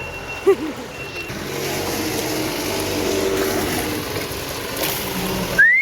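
A vehicle engine running steadily. Near the end there is a short rising whistle-like tone.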